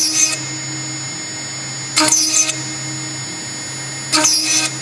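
CNC drilling router's spindle running steadily as its small drill bit pecks hole after hole into a metal plate. A loud, sharp, high-pitched cutting screech comes three times, about every two seconds, with each plunge into the metal.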